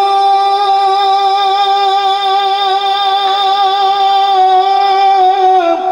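A naat reciter's voice holding one long sung note, wavering slightly. It dips and breaks off near the end.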